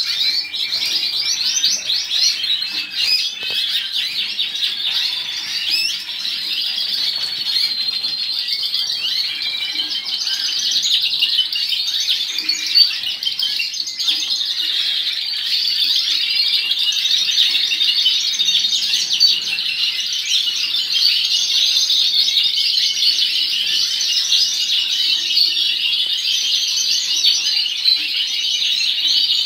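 Many domestic canaries singing and chirping at once in a dense, unbroken chorus of rapid trills.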